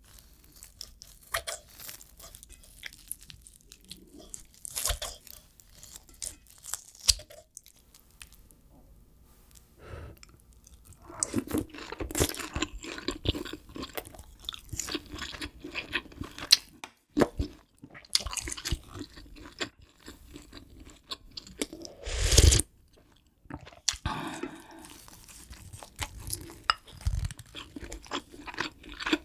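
Close-miked eating sounds of a person chewing mouthfuls of pork kimchi stew and rice: wet chewing with crunchy bites and irregular sharp clicks. One louder, longer burst comes about three-quarters of the way through.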